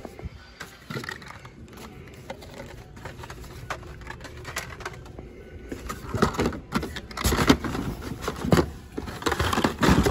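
Hand rustling through carded Hot Wheels cars in a cardboard case: stiff plastic blister packs and card backs clicking, scraping and knocking against each other and the cardboard, busier and louder from about six seconds in.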